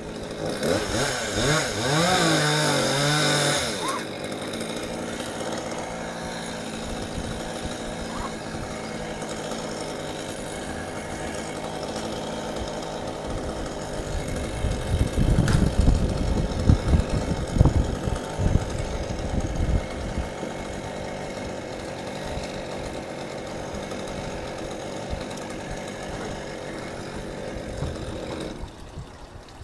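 Chainsaw revving with its pitch wavering for a few seconds, then idling steadily, with an uneven louder low rumble for several seconds midway. The saw drops away near the end.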